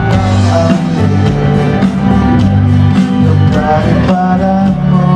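Live band music over a stage sound system, with a steady beat and a sustained bass line, and a man singing into a handheld microphone.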